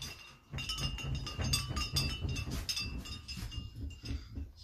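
Loose household objects and furniture rattling and clinking as the room shakes in an earthquake, in rapid irregular clicks over a low rumble, with a faint steady ringing. The rattling dips briefly just after the start, then picks up again.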